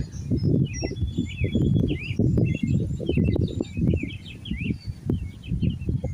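Several small birds chirping and trilling, over a loud, uneven low rumble.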